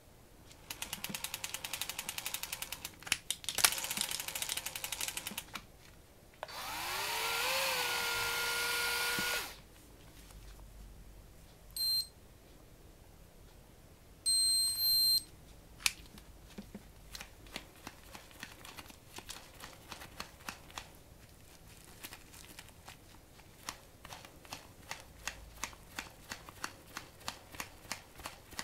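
Ryobi Adventure Dendou VS700 electric fishing reel: rapid, even clicking from its mechanism, then its motor whirring up in pitch and running steadily for about three seconds. Short electronic beeps follow from the control panel, then slower, even clicks as the spool is turned by hand.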